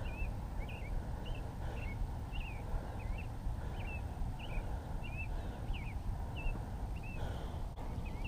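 A bird calling over and over, short squiggly chirps about two a second, over a steady low rumble of wind.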